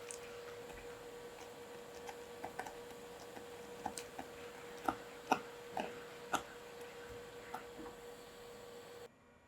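Scattered light clicks and taps of kitchen utensils during food preparation, irregular and a few a second at most, over a steady low hum; the sound cuts off abruptly near the end.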